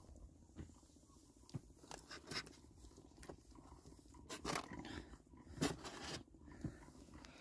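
Close handling noise in an inflatable boat: irregular rustles and soft knocks as a hand moves about the speared fish lying in the bottom of the boat, loudest about four and a half and five and a half seconds in.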